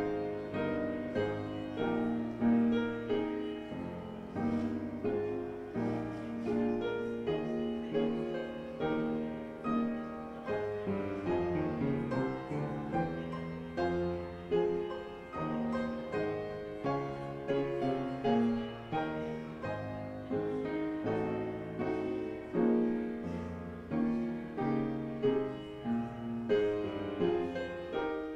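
Solo piano playing quiet, flowing music: chords and a melody, each note struck and then fading.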